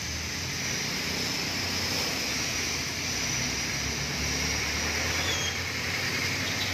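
Traffic on a rain-soaked street: a jeepney and other vehicles pass close by, engines running low under a steady hiss of tyres on the wet road.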